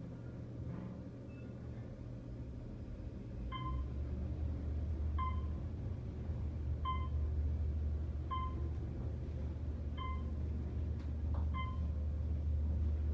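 Otis Series 1 traction elevator starting down and running, heard from inside the cab: a low steady motor and ride hum that swells about three and a half seconds in as the car gets moving, with a short beep about every second and a half as it passes each floor.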